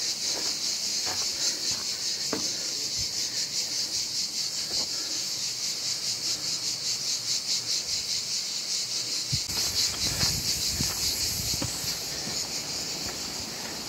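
Cicadas in the pines buzzing in a continuous chorus, a high, rapidly pulsing drone. Scattered footsteps on the path, with low wind rumble on the microphone joining about two-thirds of the way through.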